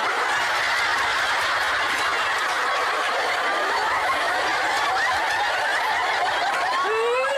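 A studio audience of women laughing together, a dense sustained wave of laughter that holds steady for several seconds.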